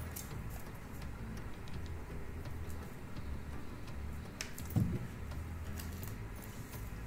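Light clicks and taps of hands handling cardboard tubes and a hot glue gun on a cloth-covered table, with one soft knock a little before five seconds in. A low steady hum runs underneath.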